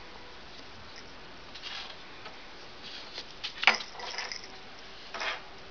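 A cat rubbing its fur against things close to the microphone: a few short, soft rustling and brushing noises, the loudest a little past halfway.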